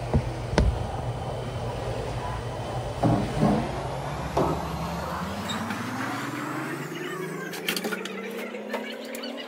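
A motor running, with a low pulsing hum whose pitch rises slowly through the second half, as when it speeds up. A few sharp knocks sound in the first half.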